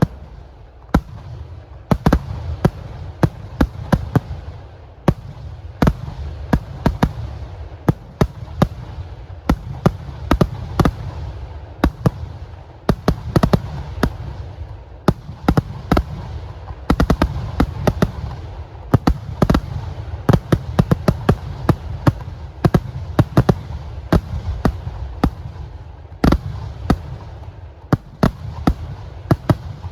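Temple-festival fireworks barrage: a rapid, irregular string of sharp explosive bangs, several a second, over a continuous low rumble.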